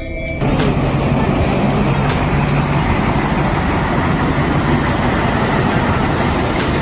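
Diesel locomotive passing close along a station platform, pulling its coaches: a steady low engine drone over a loud rumble. It starts suddenly about half a second in.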